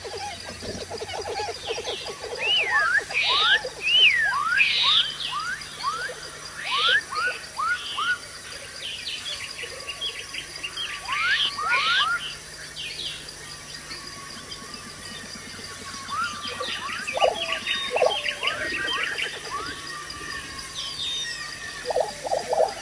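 Forest animal chorus: many short chirping calls sweeping up and down in pitch, over a steady high insect-like hum. Trains of fast, lower pulsing calls come at the start and again near the end.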